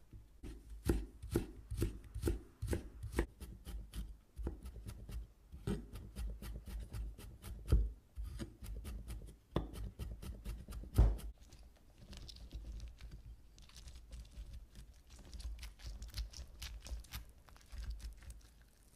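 Chef's knife chopping on a wooden cutting board, about three strikes a second, as lemon peel is cut into thin strips and garlic is minced. Softer scraping sounds follow as a lemon half is twisted on a glass juicer.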